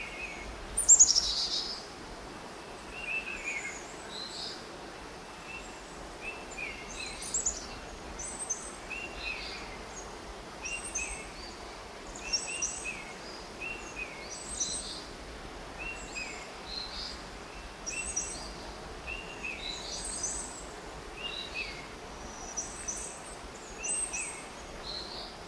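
Birds chirping: short, repeated calls every second or two, with one louder falling call about a second in, over a faint steady background hiss.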